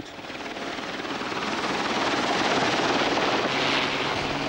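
Helicopter flying low, its rotor chop growing louder over the first couple of seconds and then holding steady.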